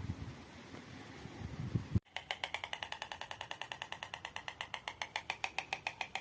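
Soft wind-like rustle, then from about two seconds in a Eurasian magpie's rapid rattling chatter: a fast, even run of harsh chak notes, about ten a second.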